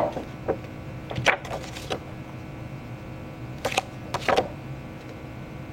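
Photo prints being handled and flipped through: a handful of short rustles and taps of paper, over a faint steady hum.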